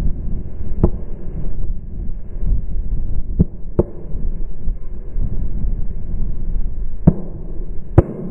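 Footsteps through dry, harvested corn stubble: stalks crunching and rustling against legs and boots, with wind rumbling on the microphone. Several sharp stalk snaps stand out, the loudest two close together near the end.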